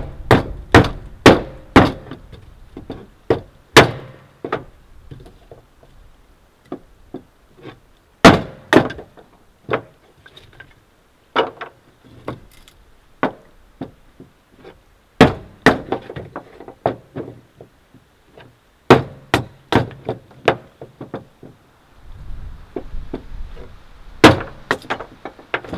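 A wooden baton striking the spine of a knife to split firewood into kindling: sharp wooden knocks in quick runs of two to five strikes, with pauses of a few seconds between runs and some lighter knocks in between.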